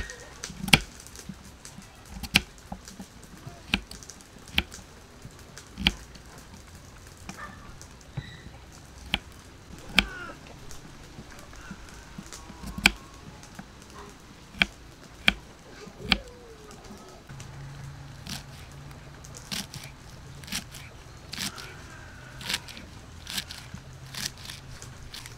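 Kitchen knife chopping carrots on a wooden chopping block: a sharp knock with each cut, about one a second. The cuts come quicker near the end as green stalks are chopped.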